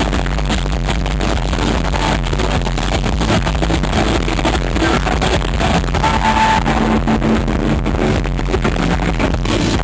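Synth-pop band playing live at a concert, electronic-leaning music, loud and with poor sound quality.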